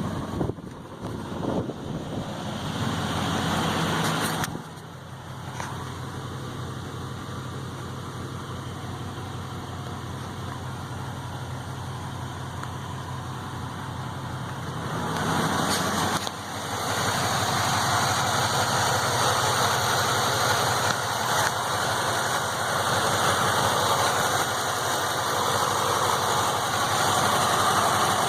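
A newly installed car engine running at idle, then held a little above idle from about 16 seconds in, where it gets louder. The owner reports a tick just above idle.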